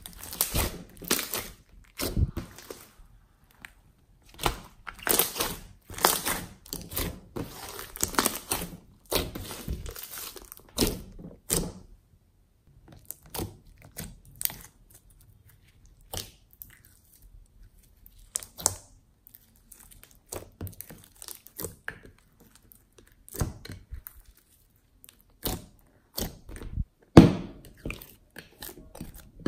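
Slime being squeezed, kneaded and stretched by hand, giving irregular wet crackles, clicks and pops from trapped air. These are dense and louder in the first part, then sparser as a gold slime with glitter and foam pieces is mixed, with one loud pop near the end.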